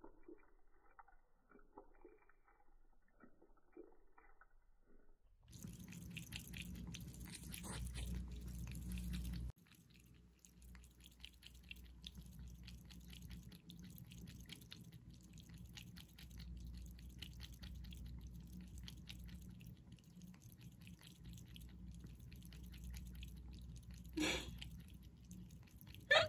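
A cat lapping water from a pet water fountain: a faint, quick run of small wet laps. From about five seconds in, a low steady hum lies under the laps, and a brief louder sound comes about two seconds before the end.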